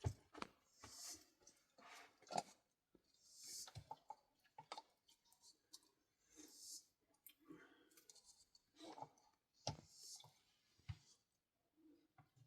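Faint, irregular clicks and light knocks, with short rustling scrapes between them.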